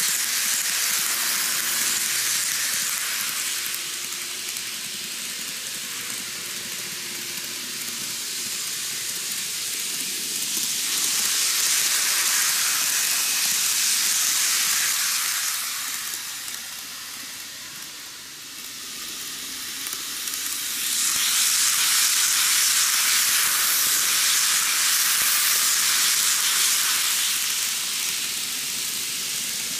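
N gauge model trains running on curved track: a steady hissing rattle of small metal wheels on the rails and the trains' little motors. It swells twice as trains pass close, with a dip in between.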